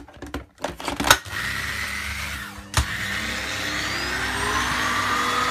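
Sharp EC-PX600-P cyclone vacuum cleaner switched on after a few clicks of handling: its motor starts running about a second in, cuts out briefly with a click near three seconds, then starts again with a whine that rises slowly in pitch as it spins up.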